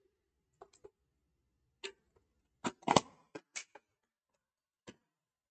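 A scattered series of light, sharp clicks and taps, about nine in all, irregularly spaced, the loudest a cluster about three seconds in.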